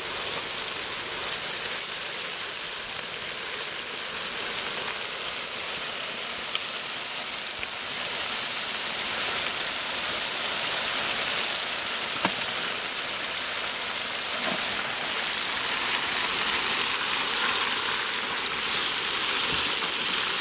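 Steady sizzle of tomato-onion masala cooking in a large iron wok as raw seer fish pieces are added, with a couple of faint clicks about halfway through.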